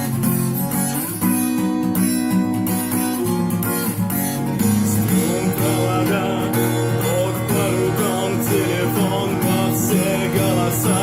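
Acoustic guitar strummed in a steady rhythm through an instrumental passage. From about five seconds in, a wavering melody line rises above the chords.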